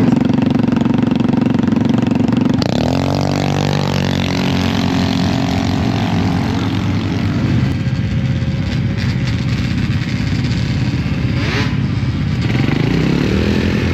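Racing snowmobile engines. A high, steady engine note gives way about three seconds in to a sled launching, its pitch climbing and then fading. Near the end another engine climbs in pitch.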